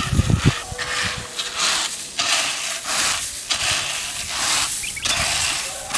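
Loose dried maize kernels hissing and rustling as a wooden grain rake is pushed and pulled through a layer of them spread out to dry, in repeated strokes about one a second.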